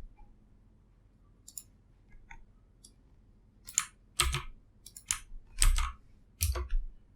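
Scattered clicks from a computer mouse and keyboard: a few faint ticks at first, then about five sharper clicks, some with a dull knock on the desk, in the second half.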